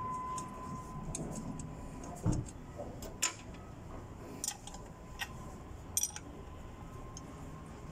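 Scattered metallic clicks and clinks of a hand wrench working the exhaust manifold flange bolts on a forklift engine, with a dull knock about two seconds in.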